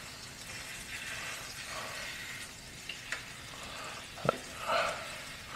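Eggs and sausage patties sizzling faintly on the ceramic-titanium non-stick plate of a Blackstone E-Series electric griddle, while a spatula slides under the fried eggs. There is one sharp tap of the spatula on the plate about four seconds in.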